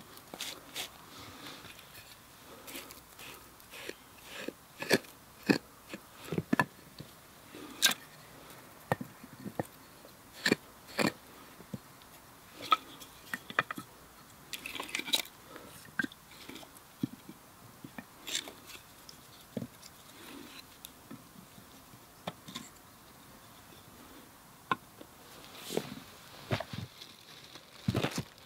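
Dry wood and twigs cracking and snapping in irregular sharp pops, a few a second at the busiest, with softer crunching in between.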